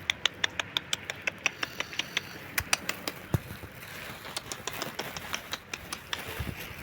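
A cat chewing with sharp crunches, a quick run of about five crunches a second that turns sparser and fainter about halfway through.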